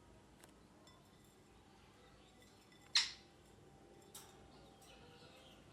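Ringneck parrot giving one sharp, short call about three seconds in and a fainter one about a second later, with soft, quiet chirps between.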